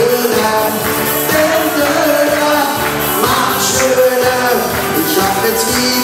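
Loud pop party music with a singing voice over a steady beat.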